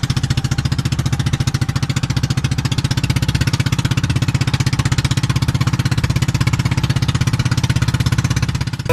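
A small engine running steadily with a rapid, even beat, cutting off just before the end.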